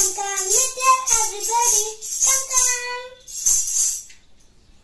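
A young girl singing a rhythmic verse to jingling hand-held clappers, about three or four jingles a second. Voice and jingles stop about four seconds in.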